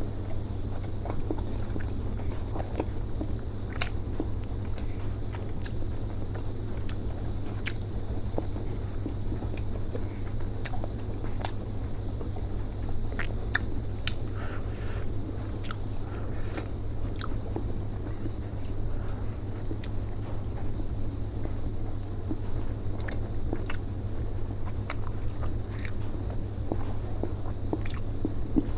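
A person chewing and biting steamed chicken momos (dumplings), with scattered wet mouth clicks, over a steady low background hum.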